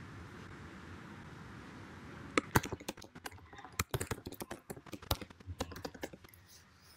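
Typing on a computer keyboard: faint room hiss at first, then a quick, uneven run of key clicks starting a couple of seconds in and stopping shortly before the end.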